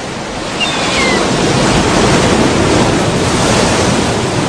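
Ocean surf washing and rushing, swelling louder after the first second or so, with a single short falling bird cry about a second in.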